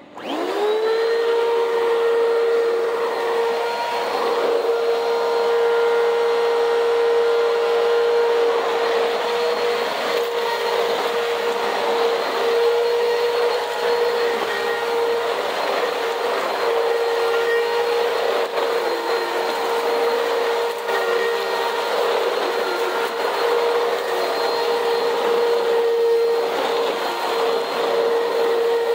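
An old Bissell CleanView upright vacuum switches on, its motor rising within about a second to a steady high whine, then runs steadily as it vacuums dirt off a cement floor. The owner thinks the motor is about to go.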